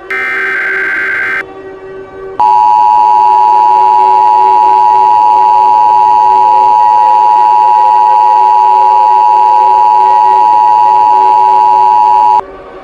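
Emergency Alert System alert tones. It opens with the last of the screechy SAME header data bursts, about a second and a half long. After a short gap comes the two-tone attention signal, a loud steady dual tone that holds for about ten seconds and cuts off abruptly.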